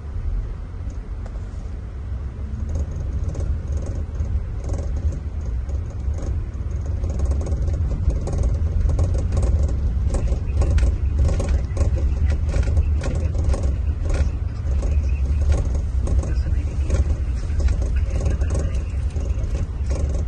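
Scania diesel engine of a Marcopolo Paradiso 1800 DD double-decker coach running as a deep, steady drone that grows louder over the first half, with light rattles on top.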